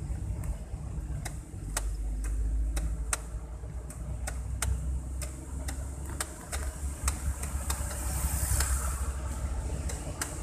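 Car driving on a highway heard from inside the cabin: a steady low rumble of engine and tyres, with sharp clicks every half second or so at uneven spacing, and a brief rise of hiss near the end.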